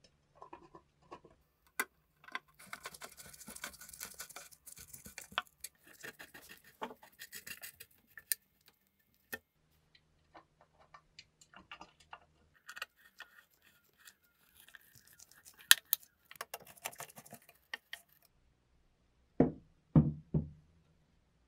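Small handling sounds: scattered sharp clicks and stretches of dry, crackly scraping, followed by three heavier knocks in quick succession near the end.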